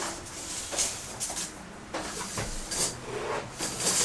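Steel tape measure being pulled out and handled, its blade sliding and rattling in several short hissy bursts, with light rubbing and scuffing.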